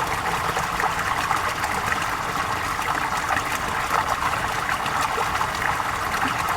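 Flowing water running and trickling steadily, like a small river or stream over stones.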